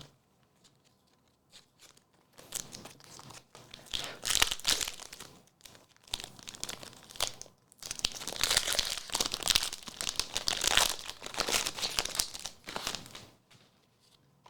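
Foil Pokémon booster pack wrappers being torn open and crinkled by hand, in two long bouts of crackling rustle with a short pause between them.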